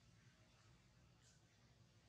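Near silence: faint background hiss and low hum.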